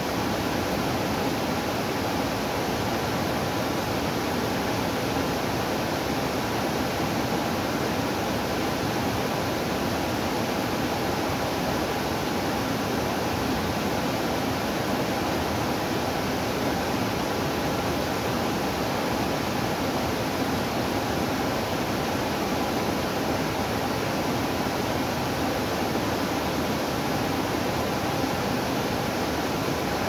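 Small waterfall pouring over a rock ledge into a pool: a steady, unbroken rush of falling water.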